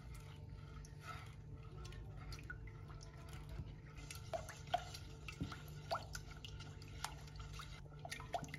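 Silicone spatula stirring a thin milk and egg-yolk mixture in a saucepan: faint liquid sloshing with small plops and clicks, more frequent in the second half.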